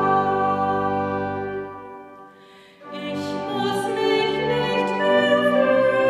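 A woman singing a hymn with long held notes; the singing stops for about a second near the middle, then the next phrase begins.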